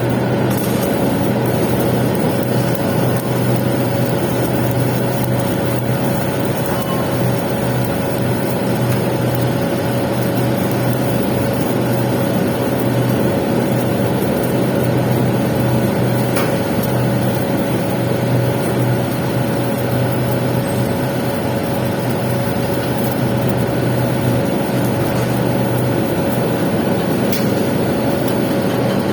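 Arc welding a pipe capping pass: the arc gives a steady crackling hiss, over a constant machine hum.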